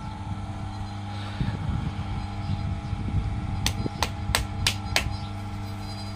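Motor-driven potter's wheel running with a steady hum while wet clay is worked on the turning wheelhead. Partway through come five sharp clicks in quick succession, about three a second.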